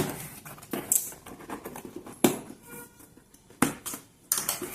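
Cardboard box being opened and its packaging handled by hand: a few sharp knocks and clacks between light rustling.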